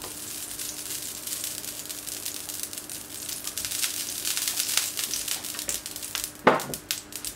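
Oil sizzling and crackling as it is spread over a hot plancha griddle plate, the crackle thickening midway, with one brief louder sound about six and a half seconds in.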